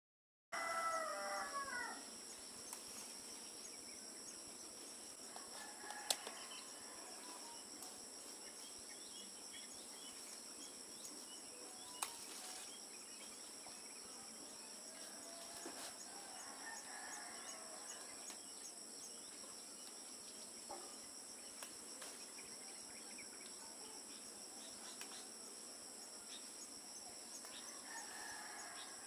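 Quiet backyard ambience: a rooster crows faintly a few times over a steady, high-pitched insect drone. Two sharp snaps, about six and twelve seconds in, come as cassava leaves are picked by hand.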